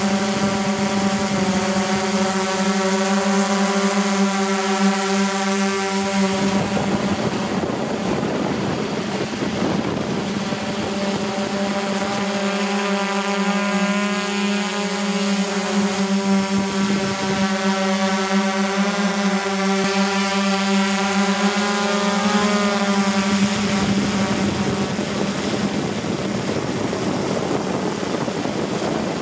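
Multirotor drone's motors and propellers humming at a steady pitch, heard close up, over a rush of wind noise. The hum breaks off and shifts pitch a few times as the throttle changes.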